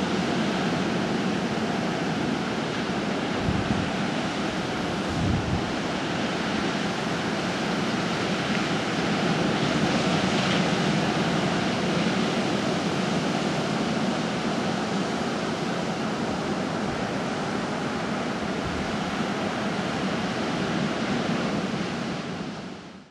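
Ocean surf breaking steadily, with wind on the microphone and a couple of brief low wind thumps; the sound fades out near the end.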